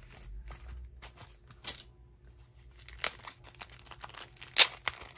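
Clear plastic photocard sleeves crinkling and rustling as cards are handled and laid down, in scattered short rustles and clicks, the loudest near the end.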